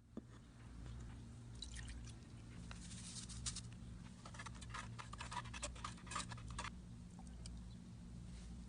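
Small clicks and wet, sticky sounds of a dessert mixture being handled with kitchen utensils, mostly in the middle, over a low steady hum.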